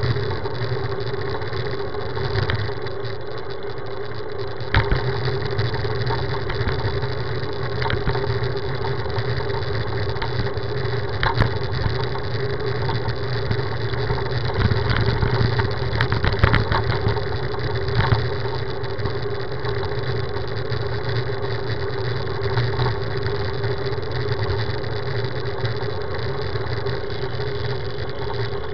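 Steady rumble and hiss of road and wind noise picked up by a camera mounted on a moving road bike, with a few short knocks from bumps in the road.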